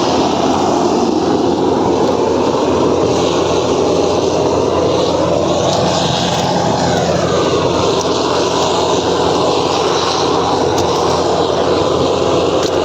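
Petrol-fuelled preheating torch burning steadily with a loud, even rush of flame as it heats the rail ends, the preheating stage before the thermit charge is ignited.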